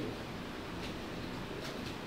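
Steady background room noise with a few faint clicks, about a second in and twice near the end.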